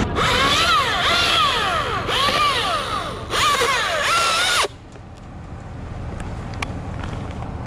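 Husqvarna T540i XP battery-powered top-handle chainsaw cutting in several bursts, its electric motor whine dropping in pitch as the chain bites into the wood and rising again between cuts. It stops suddenly about four and a half seconds in, leaving only faint ticks.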